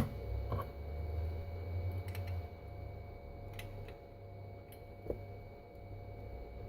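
Scattered light clicks and taps of electronic components being pressed into a circuit board's holes, the sharpest click at the very start, over a steady low hum.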